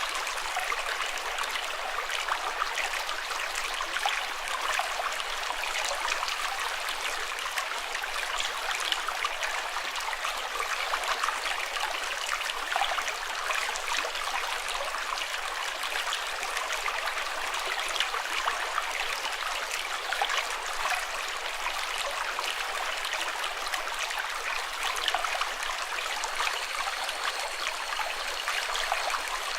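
Running water flowing and trickling steadily, a dense bubbling rush with no pauses.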